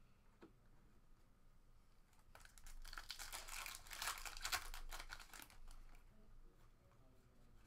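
Foil wrapper of a trading-card pack crinkling and tearing as it is opened. The sound comes in about two seconds in, is loudest for about three seconds, then fades.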